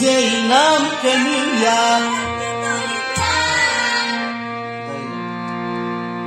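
Kashmiri devotional song: a man's voice sings wavering melismatic runs over sustained keyboard notes. The voice drops away about four seconds in, leaving the keyboard holding its notes.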